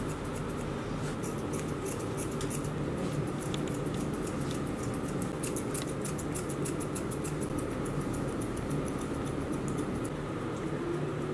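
Grooming scissors snipping through a poodle's coat: quick, crisp, repeated snips, several a second, from about a second in until near the end. A steady low hum runs underneath.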